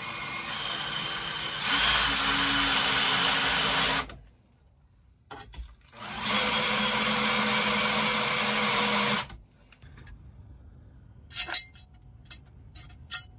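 Cordless drill boring out holes to 6 mm through a steel table saw blade, in two steady runs of about four and three seconds. A few light clicks follow near the end.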